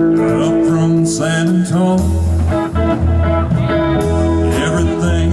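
Live music: a singer with a band, with guitar and a steady bass line under held sung notes.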